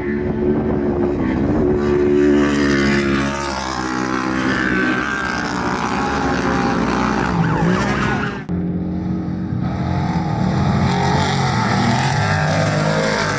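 Off-road race vehicle engines running hard at high revs, their pitch rising and falling as they accelerate and pass. The sound changes abruptly about two-thirds of the way through to another engine running at high revs.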